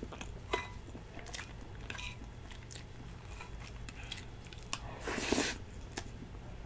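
Close-up eating sounds of a person eating cheesecake with whipped cream: soft chewing and mouth sounds with scattered small clicks, and one louder rustling, breathy stretch about five seconds in.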